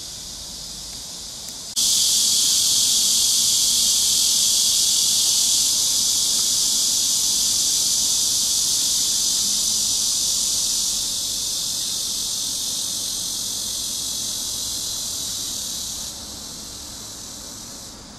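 Cicadas buzzing in a dense, steady, high hiss that starts suddenly about two seconds in, then eases down a little around the middle and again near the end.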